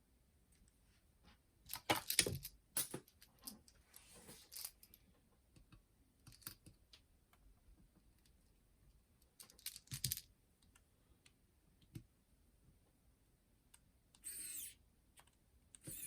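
Scattered small clicks, taps and rattles of hands working on a boombox's cassette mechanism while its drive belts are taken off, with a cluster of knocks about two seconds in and a brief scrape near the end.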